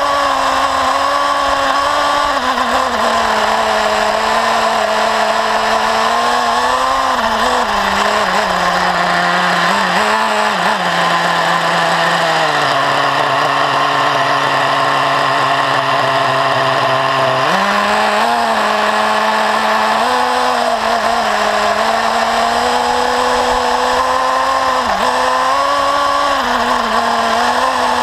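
Small nitro engine of an XTM Rail RC buggy running, heard close up from an onboard camera; its pitch rises and falls with the throttle. About halfway through it drops to a steady idle for around five seconds, then revs sharply back up.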